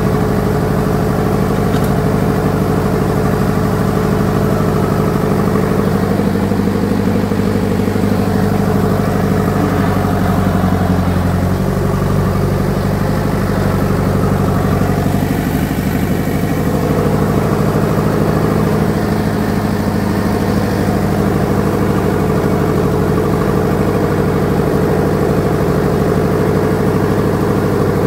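Ford Major tractor engine running steadily in low gear on a slow descent, its note shifting slightly about twelve seconds in.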